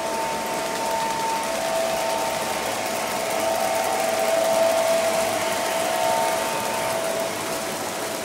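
O gauge model passenger train running at track speed, led by Lionel scale Santa Fe F3 diesels: a steady whir of electric motors and wheels on three-rail track, with a whine that shifts in pitch and swells a little as the train passes close by mid-way.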